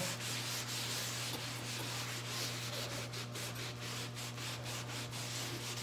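Damp cloth scrubbed back and forth over wet paper glued to a cotton canvas, a steady scratchy rubbing in quick repeated strokes. It is the paper-removal stage of a glue image transfer: the softened photocopy paper is rubbed away so only the ink stays on the cotton.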